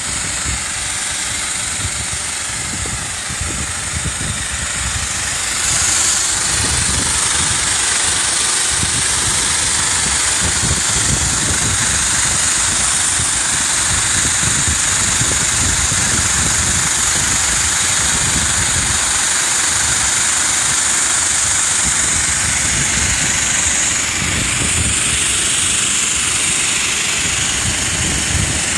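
Powerful water jet spraying onto LED floodlight housings and wet pavement in an IP66 water-jet test: a loud, steady hissing spray that gets louder about six seconds in, over a continuous low rumble.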